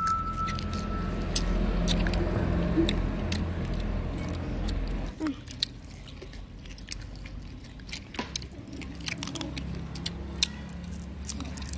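A young child biting and chewing a small, firm green fruit close to the microphone: scattered sharp, crisp clicks of bites and chews throughout. A low rumble under the first five seconds drops away after that.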